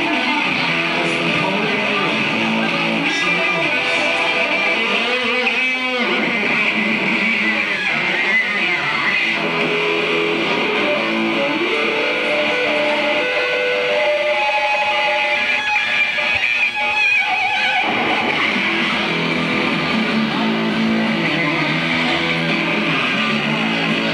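Electric guitar played through a Marshall amplifier stack in an instrumental passage of held, ringing notes, with quick swooping runs about six seconds in and again near seventeen seconds.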